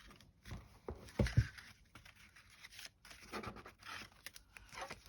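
Paper rustling and light knocks as a junk journal is handled and its pages turned, with the loudest knock about a second in.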